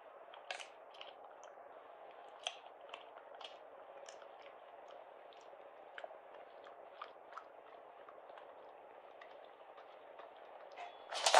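Faint scattered clicks and crunches, about a dozen, over a low steady hiss, with a louder burst of noise near the end.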